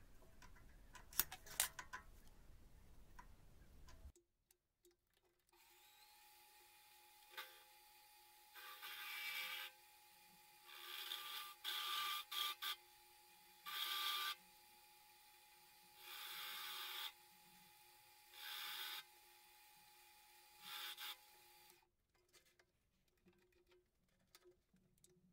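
Benchtop metal lathe running with a faint steady motor whine, broken by six short bursts of hissing cutting noise as the tool takes cuts in the bar stock. A few light clicks at the start come from handling the calipers and workpiece.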